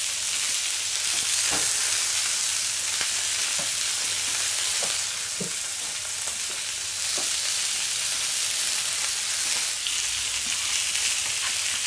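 Pork, bacon and vegetable skewers and pepper pieces sizzling on a hot steel fire plate, a steady hiss, with a few faint knocks as the food is moved on the plate.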